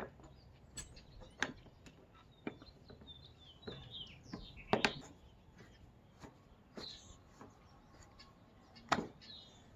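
Scattered sharp clicks and taps of hand tools prying the cap off a riding mower's wheel hub, the loudest about five and nine seconds in. Birds chirp in the background.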